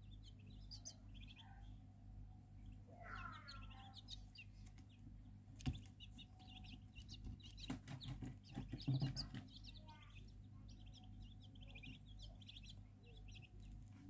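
Downy chicks of a crake (sesintaran) and a snipe (berkik) peeping with short, high chirps, some of them falling in pitch. A sharp click comes about six seconds in, then scattered knocks and rustling for a few seconds, over a steady low hum.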